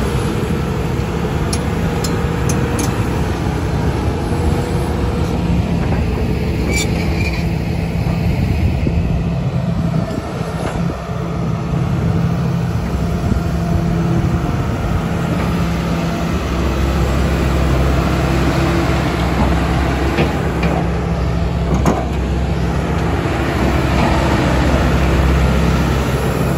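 Hitachi ZX290LC-5B excavator's Isuzu diesel engine running steadily at idle, its low hum growing stronger in the second half, with a few light clicks.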